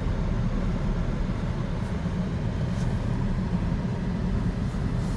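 Steady low rumble of a car's engine and running gear heard from inside the cabin.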